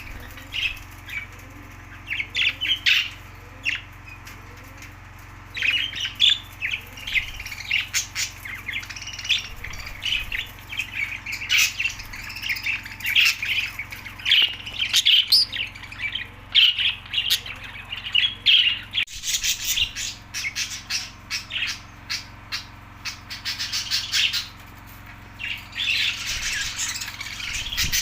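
A flock of budgerigars chattering: rapid short chirps and squawks in busy bursts, with brief lulls between them.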